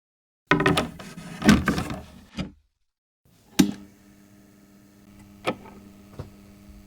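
Treton turntable radio being handled: a cluster of knocks and clicks with a short metallic ring. Then a sharp switch click, after which the set runs with a steady low hum, with two more small clicks near the end.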